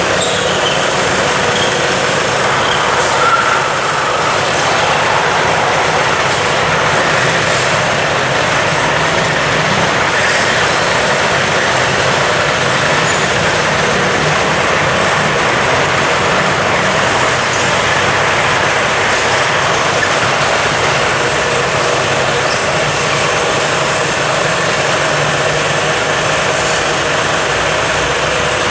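Rebar straightening machine running steadily: a constant loud mechanical whirr and hiss with a low hum, dotted with faint metallic ticks.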